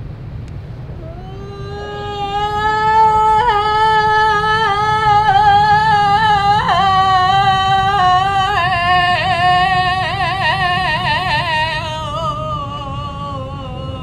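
A voice holds one long wailing note. It slides up at the start, drops a step about halfway through, and wavers strongly in the second half before fading near the end, over a steady low rumble.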